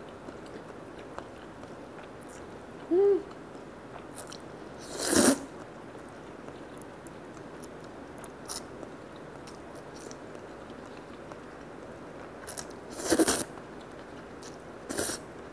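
Konjac noodles in spicy mala-tang broth being slurped up from a cup, with loud slurps about five seconds in and twice near the end, and soft chewing between them. A short hummed tone about three seconds in.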